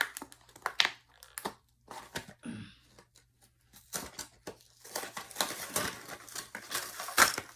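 Cardboard toy packaging being pulled and torn open by hand: scattered crinkles and tears at first, a short lull, then denser crinkling and rustling through the second half, with a sharp snap near the end.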